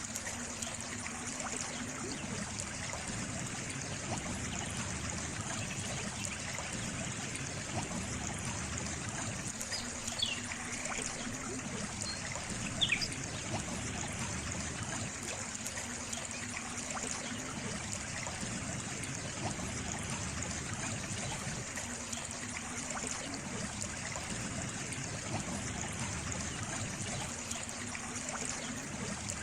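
Water trickling and running steadily, as in a small stream, with a couple of brief faint high chirps near the middle.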